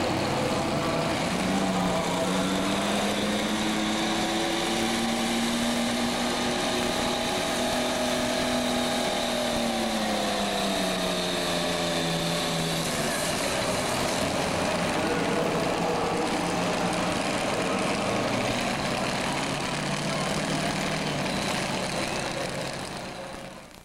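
Super stock pulling tractor's turbocharged diesel engine running hard under load while hauling a weight-transfer sled. Its pitch climbs in the first few seconds, holds, then drops from about eight to twelve seconds in and stays lower until the sound fades out near the end.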